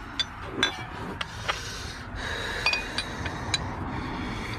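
Metal parts and hand tools clinking, tapping and scraping during hands-on work on a car, in irregular single clicks with short metallic rings.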